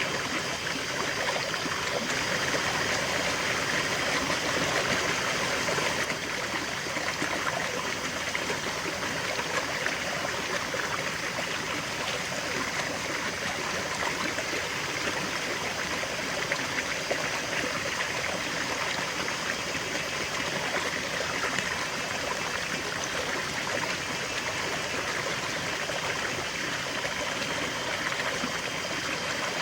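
River water flowing steadily over rocks: a continuous rush with trickling and gurgling, a little fuller in the first few seconds.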